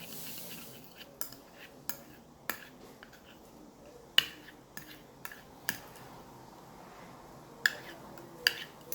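Spoon clicking and tapping against a bowl while shampoo-and-salt slime is stirred: about eight scattered, irregular taps.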